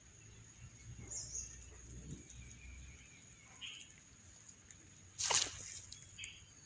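Faint high chirping calls, with one sharp, louder squeak about five seconds in, over a steady high-pitched whine.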